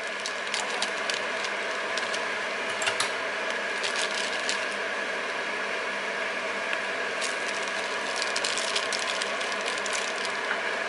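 A steady mechanical hum runs underneath, with scattered light clicks and crinkles as a peeled onion is taken from a plastic bag and handled on a plastic cutting board.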